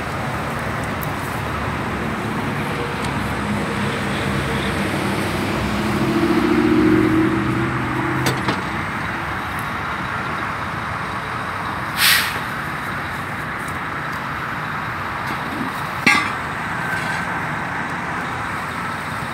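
Steady roadside traffic and vehicle engine noise. A vehicle engine swells louder and then fades between about six and eight seconds in, and two short hisses stand out later.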